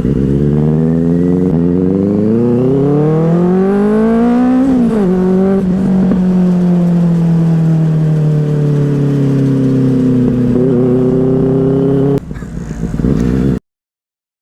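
Benelli 600i inline-four motorcycle engine through a loud aftermarket silencer. The revs climb steadily for about four and a half seconds, drop sharply, then hold a steady, slowly falling note before suddenly going quieter near the end.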